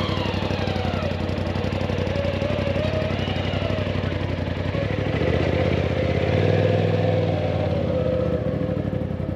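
An engine idling steadily, its low hum swelling briefly about six to seven seconds in.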